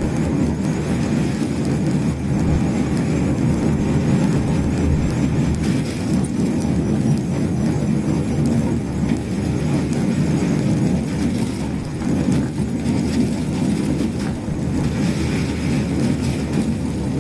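COMS single-seat electric microcar being driven: steady road and running noise with a repeated squeak-squeak-squeak (kyu-kyu-kyu) that goes on all through the drive. It is an abnormal noise of unknown cause, which the owner fears is a sign that the car is breaking.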